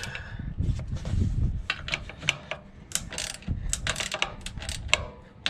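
Ratchet wrench clicking in quick, uneven strokes as the ground bolt of an electric tongue jack is tightened down by feel onto its star washer.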